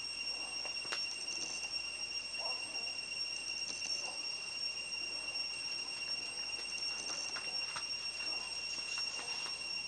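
Forest ambience held by a steady high-pitched whine, with faint short calls now and then and a single click about a second in. No owl call is heard.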